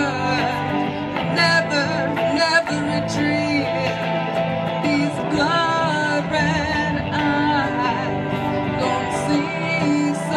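A live band playing: a woman singing into a microphone over amplified electric guitar.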